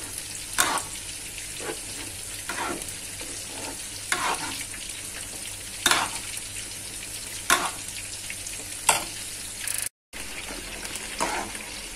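Metal ladle stirring a thick rice-flour satay sauce in a steel wok, scraping against the pan about every one to two seconds over a steady hiss. The stirring is kept up nonstop so the thickening sauce does not form lumps. The sound cuts out for a moment near the end.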